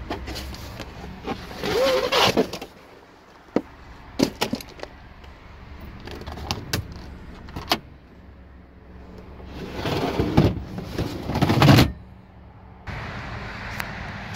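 Handling noises from the Honda CR-V's removable cargo floor panel, which doubles as a folding picnic table, as it is lifted out and unfolded: scattered plastic knocks and clicks, then a longer, louder clatter near the end.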